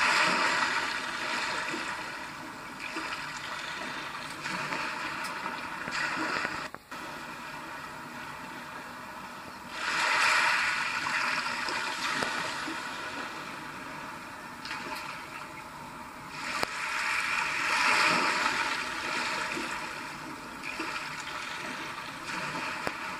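A recording of sea waves, a rushing hiss that swells and ebbs three times, played through the small speaker of a Roberts Gemini 49 DAB radio tuned to a digital test transmission. It cuts out briefly about a third of the way through.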